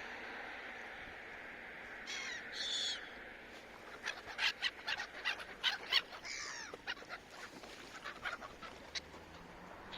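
Seagulls calling over a steady background hiss. Two drawn-out cries come about two seconds in, then a quick run of short, sharp calls from about four to seven seconds in, with a few scattered calls after.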